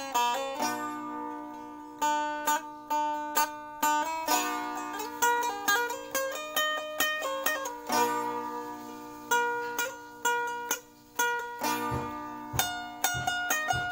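Sape, the Borneo boat lute, played solo: a plucked melody of ringing notes over a steady drone string, with a short pause about eleven seconds in.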